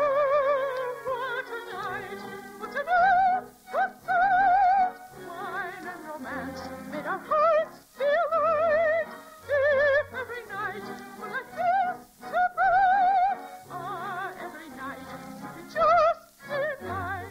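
Operetta music: a soprano singing short, high held notes with wide operatic vibrato over an orchestra, in phrases broken by brief pauses.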